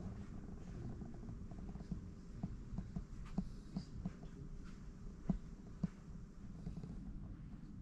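Indoor room tone: a low steady hum and rumble, with a few short sharp clicks near the middle.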